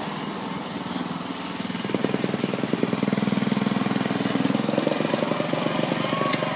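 Briggs & Stratton engine of a Murray riding lawn mower running as it is driven through pond water. It is softer at first, picks up about two seconds in, and revs higher near five seconds.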